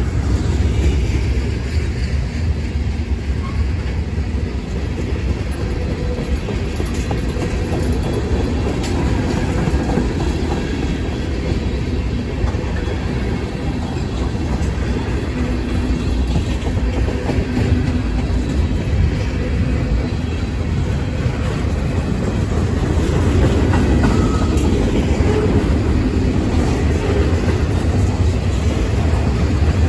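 Freight cars of a long manifest train rolling past at close range: a steady, continuous rumble of steel wheels on the rails.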